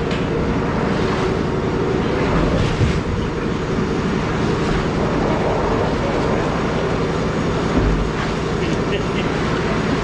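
Machinery running with a steady hum and noise, unchanging throughout.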